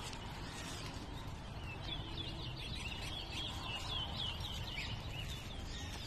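Towa-towa (chestnut-bellied seed finch) singing: a rapid run of short, high chirping notes starting about two seconds in and lasting some three seconds, over a steady low background rumble.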